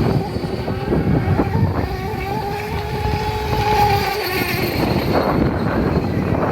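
Motor of a radio-controlled model boat running, a steady drone that holds its pitch for a few seconds and then fades, over a rough rushing noise.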